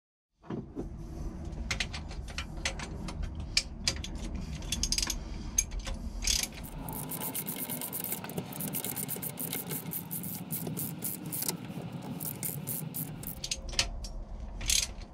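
Socket ratchet wrench clicking in quick runs as it tightens a mounting bolt on a Mercruiser 350 MPI marine engine. The clicking is densest in the middle, over a low rumble of handling and knocking.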